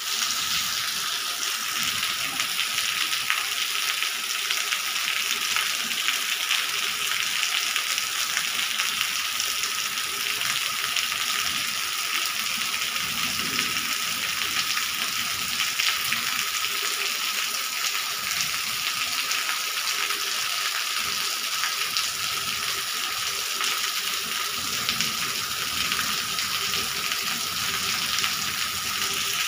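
Steady rain falling on a wet tiled courtyard and the leaves of trees: an even, unbroken hiss of many small drops.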